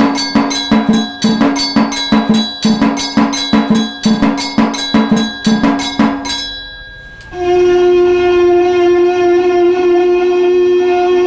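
Motorised aarti machine striking its temple bell and drum in an even beat, about three strokes a second, which stops near the middle. About seven seconds in, the machine's shankh (conch-shell) sound starts: one long, steady note.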